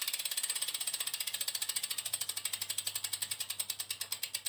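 Road bike's rear freehub ticking as the wheel spins freely, the pawl clicks slowing steadily as the wheel runs down.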